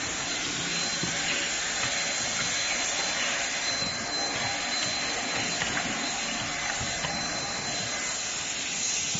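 Automatic bottle case-packing machine and its bottle conveyor running: a steady machine hiss and whir with a thin, steady high whine.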